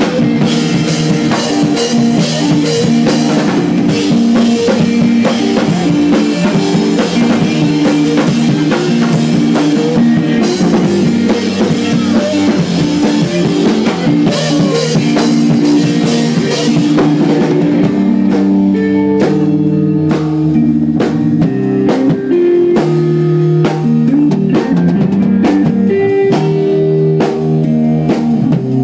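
A live math rock band playing loud: electric guitars over a busy drum kit. About two-thirds of the way through, the drumming thins out and ringing guitar notes come forward.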